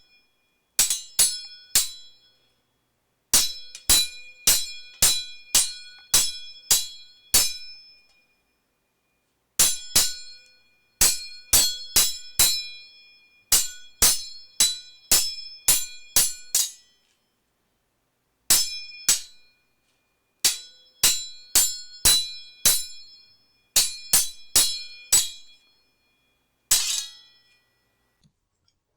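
Sword sound effects: dozens of sharp metal blade strikes and clinks, each ringing briefly, in quick runs of several hits with short pauses between them. Near the end comes one longer, noisier metallic hit.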